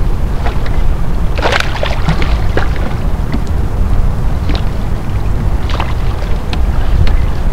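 Wind buffeting the microphone as a steady low rumble, with scattered small knocks and splashes around a kayak on the water.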